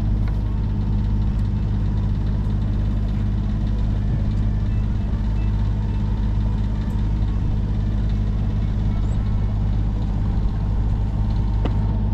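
A sailing yacht's auxiliary engine running steadily under way, a low even drone that holds one pitch throughout.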